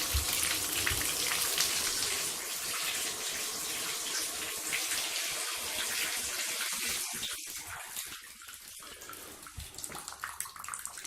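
Bathtub faucet running water into a tub whose drain is pretty clogged; the water is being run to test the slow drain. The flow goes quieter about seven seconds in.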